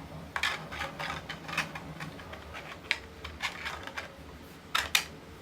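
Hard 3D-printed plastic parts clicking and knocking together as skirt pieces are slid onto their dovetail joints, with two louder sharp clicks near the end.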